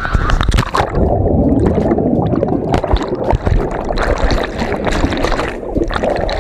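Splash as the camera plunges into river water about a second in, then muffled underwater bubbling and gurgling around the submerged microphone.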